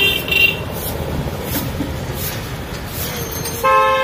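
Steady background noise, with two short high squeaks at the start and one short vehicle horn honk, a single steady tone about half a second long, near the end.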